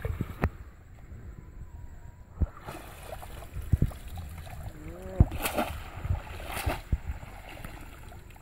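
Water sloshing and splashing as a woven bamboo fish trap is lifted out of a shallow channel and water runs out of it, with several short bursts of splashing and a few knocks.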